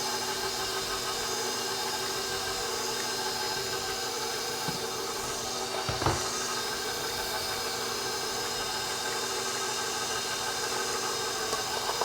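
Electric mixer running steadily on low speed, beating cake batter, with a steady motor hum made of many tones. A single knock about six seconds in.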